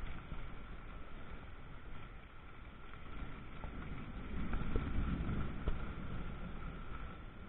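Thunderstorm outdoors: a steady low rumble of wind and weather that swells for about two seconds around the middle.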